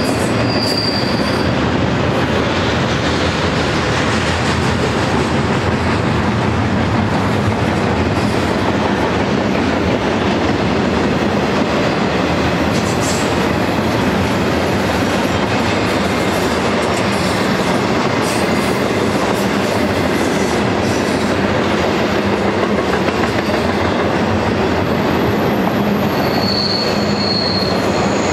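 Double-stack intermodal train's well cars rolling past close by: a steady, loud rumble and rail noise with no let-up. A brief high-pitched wheel squeal sounds near the start and again near the end.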